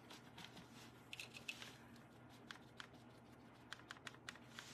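Near silence broken by faint scratching and light ticks from paint being rubbed and scraped onto a metal baking pan with a gloved hand, a few small clicks a little after a second in and several more toward the end.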